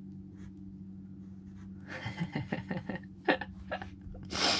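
Pencil scratching on paper in a run of short quick strokes over a low steady hum, then a loud breath near the end.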